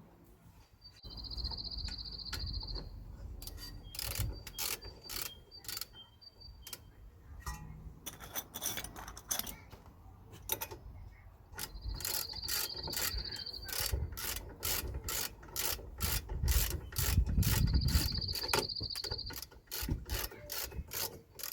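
Socket ratchet wrench clicking stroke by stroke as a brake caliper bolt is done up, with three quick spins of the ratchet heard as a fast buzzing run of clicks.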